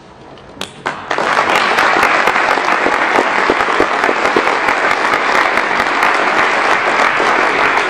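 Audience applauding: a few scattered claps, then from about a second in, steady applause from many hands that begins to die down near the end.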